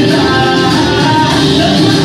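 A loud recorded song, a singer over a full backing track, played as music for a dance routine.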